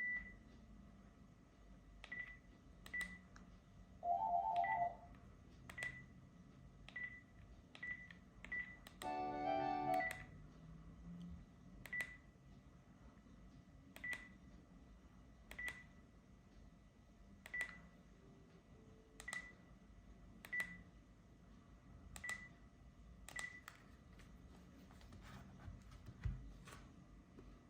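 Panasonic KX-TGD322 cordless handset keys being pressed, about eighteen times at irregular intervals of roughly a second. Each press gives a click with a short high beep. A brief two-note tone sounds about four seconds in, and a short snatch of ringtone melody plays about nine seconds in.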